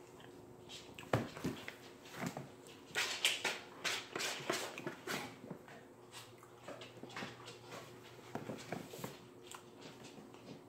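A cat's claws scratching and scraping on a cardboard box as it climbs down inside, a run of irregular scratches and knocks, busiest in the first half.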